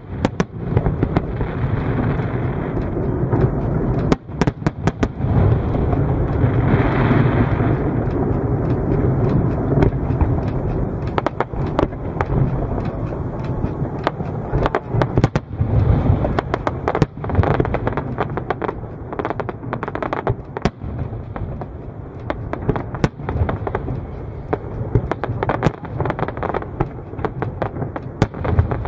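Aerial fireworks display: a rapid, irregular series of sharp bangs from shells bursting, over a continuous low-pitched din.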